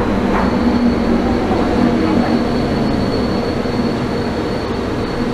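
Taipei Metro train running, heard from inside the front car: a steady rumble of running noise with a thin, steady high whine from about half a second in.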